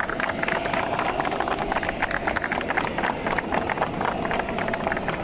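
A group of people clapping, with irregular, overlapping claps throughout. Beneath it runs a steady engine whine.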